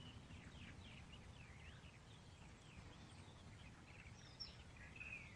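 Faint birds chirping in many short, quick calls over a low background hiss.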